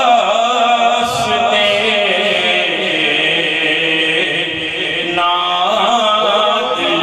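A male voice chants an Urdu naat (devotional kalam) in long, drawn-out melodic phrases.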